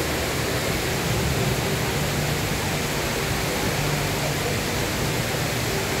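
The Rain Vortex, a seven-storey indoor waterfall, pouring down into its basin: a steady, even rush of falling water.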